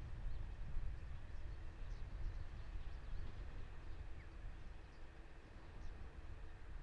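Outdoor ambience: a low, wavering rumble with a faint steady hum, and scattered short bird chirps.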